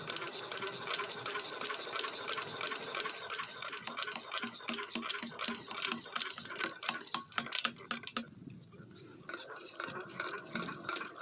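8 hp single-cylinder diesel pump engine being hand-cranked with its starting handle to start it: a quick rhythmic whirring and clicking of the crank and flywheel at about four turns a second. The cranking eases off about eight seconds in, then picks up again near the end.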